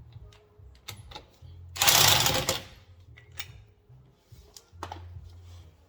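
A short burst of a power tool's rapid mechanical rattle, under a second long, about two seconds in, with scattered sharp tool clicks around it.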